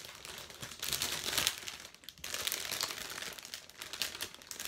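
Clear plastic food wrapper crinkling as it is handled, in two spells with a short pause about two seconds in.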